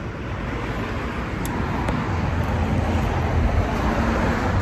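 Outdoor background noise: a steady low rumble with a hiss above it, typical of road traffic, growing louder toward the end.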